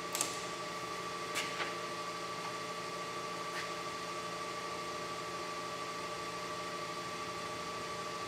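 Milling machine running with a steady hum that holds several fixed tones, with a few light clicks in the first few seconds.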